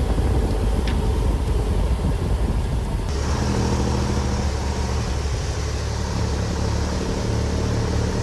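A heavy vehicle's engine running loud and rough, settling about three seconds in into a steady low drone.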